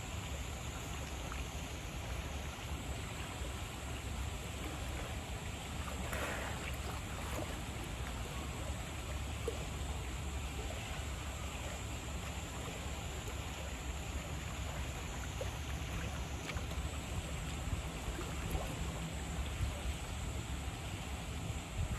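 Steady outdoor background noise: a low rumble under an even, water-like hiss, with no distinct calls or knocks standing out.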